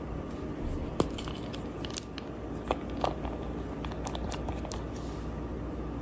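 Quiet handling sounds of a small gel nail polish bottle: scattered little clicks and ticks as it is picked up and its brush cap is twisted off. A few sharper clicks come between about one and three seconds in.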